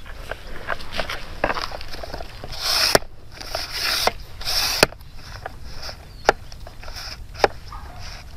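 Close handling noise on a camera's microphone: rustling and scattered knocks and clicks as the camera is being adjusted.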